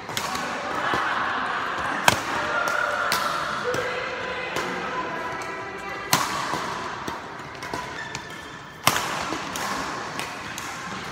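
Badminton rackets striking a shuttlecock during a doubles rally: sharp cracks a few seconds apart, the loudest about two, six and nine seconds in, over a background of voices.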